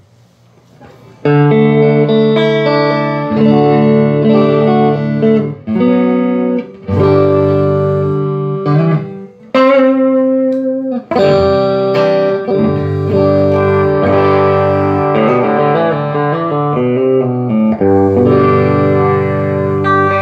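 Electric guitar played through a Vox AC30 CC2 valve amp, strummed chords left to ring and changing every second or two, starting about a second in. It is the amp's sound test after repair: new filter caps, GZ34 rectifier and top boost channel caps.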